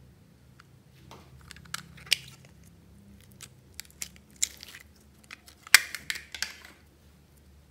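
Sharp plastic clicks and sticky, crackly popping as an elephant-shaped plastic slime case is handled and opened and yellow glitter slime is squeezed and pulled out of it with the fingers. The loudest cluster of crackles comes near the end, as the slime comes free.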